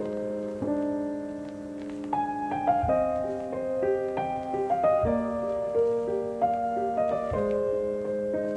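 Background piano music: single notes and held chords changing every second or so.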